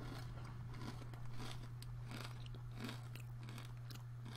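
Hand-cooked potato crisps being chewed, a soft crunch two or three times a second over a steady low hum.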